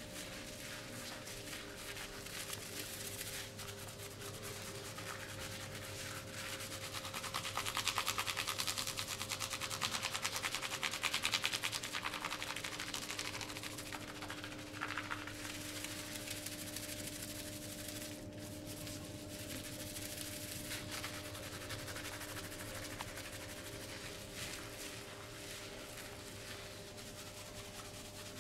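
Hands rubbing and kneading over skin in a massage, a dry rustling friction that grows louder for several seconds near the middle, over a steady low hum.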